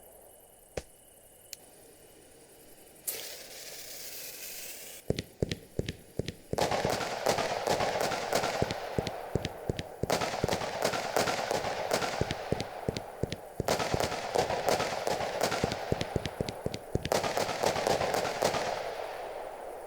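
Firework going off: a fuse hisses for about two seconds, then a long run of rapid cracks and crackling comes in several bursts and fades out near the end.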